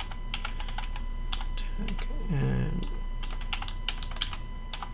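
Typing on a computer keyboard: irregular runs of keystroke clicks while a username and password are entered.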